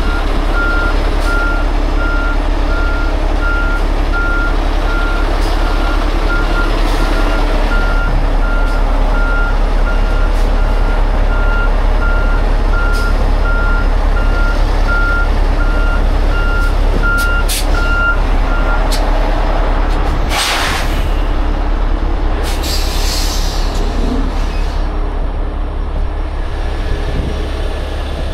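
Heavy rotator tow truck's diesel engine running steadily as it works the boom, with a reversing alarm beeping about once a second until about two-thirds of the way through. Then come two short hisses of air, a few seconds apart.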